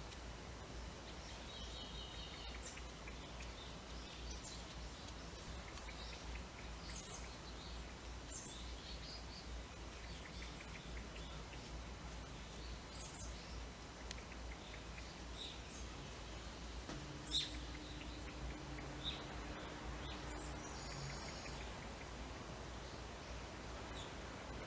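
Birds chirping in short, scattered calls over a steady low background hum. A low steady hum joins for about four seconds past the middle.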